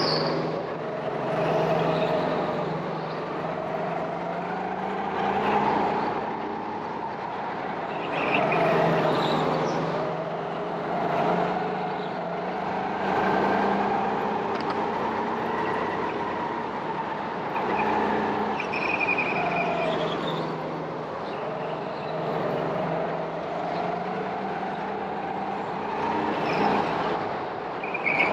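Go-kart engine running with its pitch rising and falling every few seconds as the throttle is opened and lifted, with a few brief high squeals.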